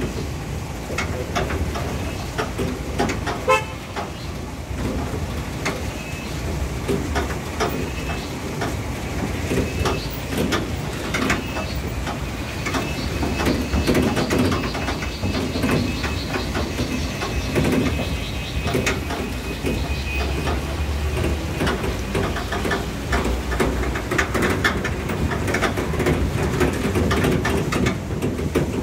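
A vehicle driving over a rough dirt track: a steady engine and road rumble, with frequent knocks and rattles as it jolts over the uneven ground.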